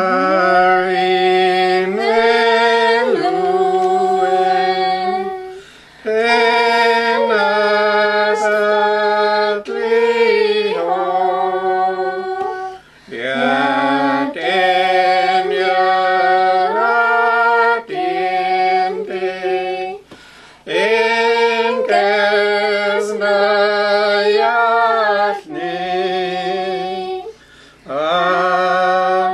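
A hymn sung a cappella in Dakelh (Carrier): long held notes with vibrato, phrase after phrase, with short pauses for breath between them.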